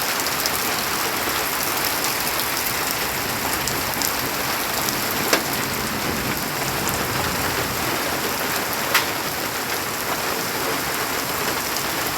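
Heavy rain pouring onto surfaces in a dense steady patter, with two sharp knocks about five and nine seconds in.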